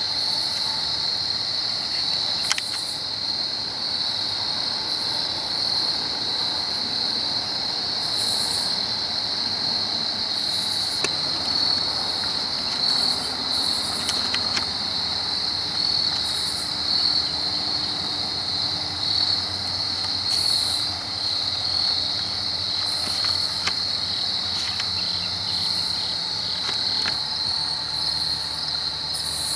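Steady chorus of crickets: a continuous high trill, with short higher buzzes every second or two and a few light clicks.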